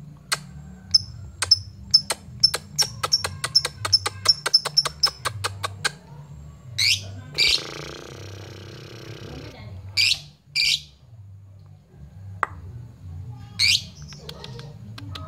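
Fischer's lovebird calling: a fast run of sharp chirps for about five seconds, then a few loud single shrieks, with a harsh rasping stretch about halfway. These are a lovebird's challenge calls, used to call out a rival bird.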